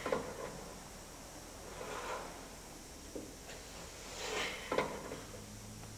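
Faint rustling with a few light clicks, the sharpest click nearly five seconds in.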